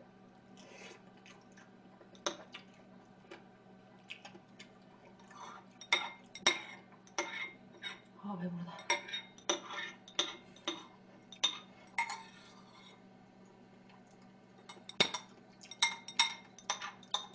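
Metal spoon clinking and scraping against a ceramic bowl as food is scooped up, in a quick run of sharp clinks through the middle and again near the end.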